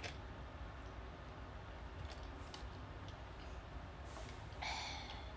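Quiet room tone with a steady low hum and a few faint clicks, then a short breathy sound from the streamer near the end.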